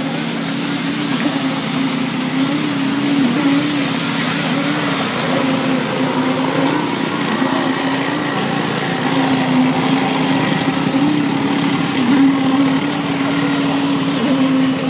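Concrete-pouring machinery running steadily: a constant engine hum whose pitch wavers slightly, over a wide noise.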